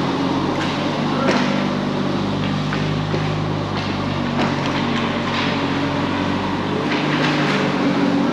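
Ice hockey rink during a youth scrimmage: a steady low mechanical hum with about ten scattered sharp clacks of sticks and puck.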